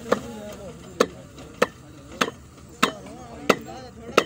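Steady hammering: seven sharp knocks, about one every 0.6 to 0.7 seconds.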